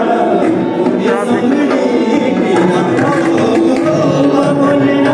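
Music with drums, singing and a held melody line.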